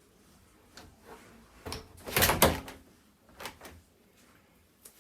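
A few knocks and clicks of hard objects being handled, the loudest a quick cluster of knocks a little over two seconds in.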